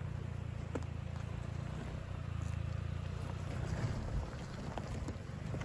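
Mahindra XUV300 SUV's engine running at low revs as the car crawls over a loose, rocky gravel track: a steady low rumble.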